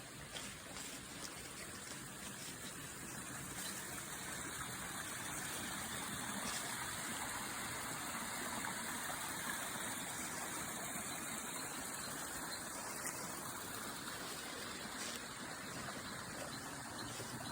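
Steady rushing of flowing water, growing a little louder over the first few seconds and then holding even.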